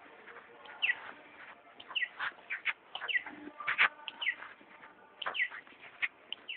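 Many birds chirping: a busy scatter of short, sharp calls, each falling in pitch, with clicks mixed in and overlapping.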